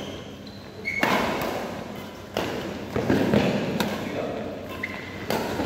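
Badminton rally: about five sharp racket hits on the shuttlecock, spaced roughly a second apart, with players' footsteps thudding on the court, echoing in a large hall.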